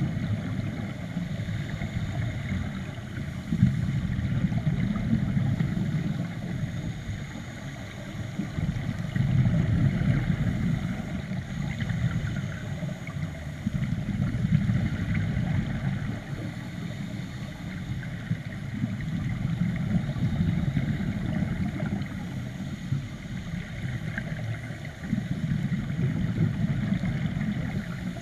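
Scuba regulator breathing heard underwater through a GoPro housing: low, bubbly exhalation rumble that swells and eases in a slow cycle about every five seconds.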